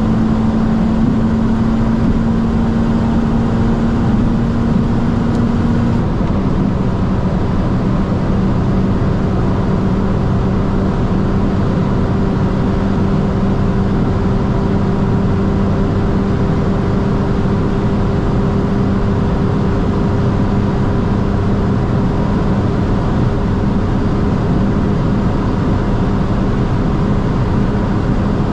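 Mini John Cooper Works GP (R53) supercharged 1.6-litre four-cylinder running under sustained load at high autobahn speed, over a steady rush of road and wind noise. Its note steps down slightly about six seconds in, then holds while a higher tone climbs slowly.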